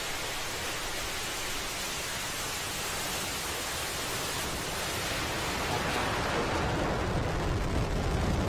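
Falcon 9 first stage's nine Merlin engines at full thrust during liftoff: a steady rushing noise, with a deeper rumble growing louder over the last few seconds.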